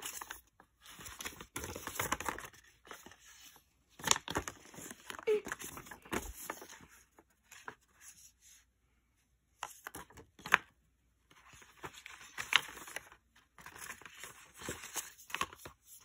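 Paper rustling and crinkling as a folded paper leaflet is handled and its pages are flipped open, coming in irregular bursts with short pauses and a few sharp clicks.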